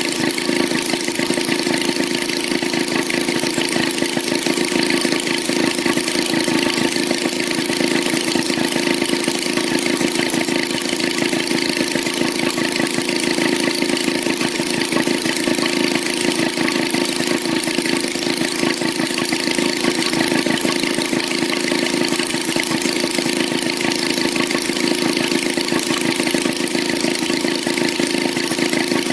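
Maytag Model 72 two-cylinder two-stroke engine running steadily at an even idle.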